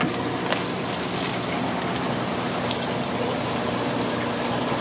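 Steady rushing noise and low hum of a fish room's aquarium pumps, filters and aeration running, with a couple of light clicks.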